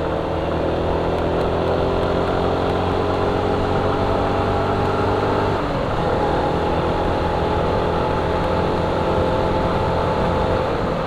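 Suzuki Gixxer 150's single-cylinder engine running under way, its pitch creeping up for about five and a half seconds, then dropping suddenly and running on steadily.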